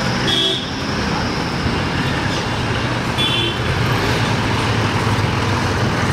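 Steady city road traffic: cars and other vehicles driving past, with two short horn toots, one near the start and one about three seconds in.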